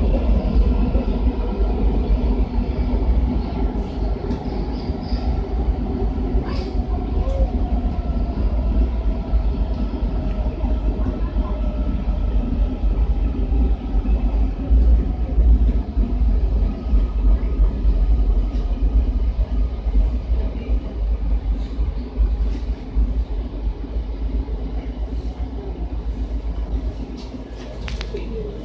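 Washington Metro 7000-series railcar in motion, heard from inside the car: a steady loud rumble of wheels and running gear on the track, with faint whining tones, one slowly falling in pitch. The rumble eases off a little near the end.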